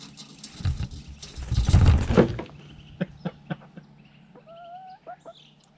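Domestic hens: two loud rushes of wing-flapping in the first half, then a few sharp scratchy clicks, and near the end a hen's short, slightly rising call.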